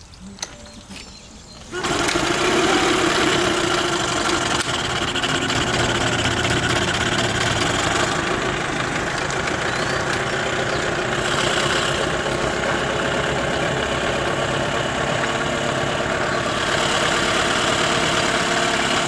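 Mercury 9.9 two-stroke outboard motor catching about two seconds in and then running steadily on a cold first start, just after its carburetor was taken apart and cleaned.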